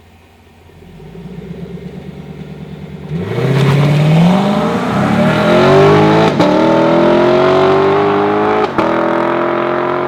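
Sports car engine held at raised revs, then accelerating hard from about three seconds in, its pitch climbing and broken by two quick upshifts, each a brief cut followed by lower revs.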